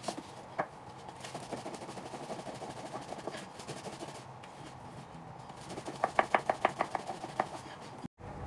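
Thin wooden rolling pin rolling out dumpling wrappers on a wooden board, making soft repeated clacks. About six seconds in comes a quick run of about eight sharper knocks of the pin on the board.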